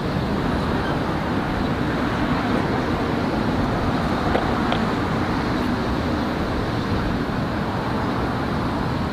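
Steady vehicle engine and traffic noise with a low hum, starting suddenly at a cut.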